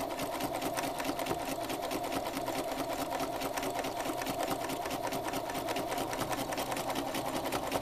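Sewing machine stitching steadily during free-motion quilting, its needle beating in a rapid, even rhythm as it travels along a line.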